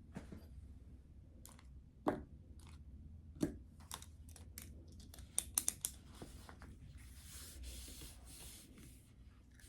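Scattered light clicks and knocks of small objects being handled, with a quick cluster of clicks about halfway through and a soft rustle near the end.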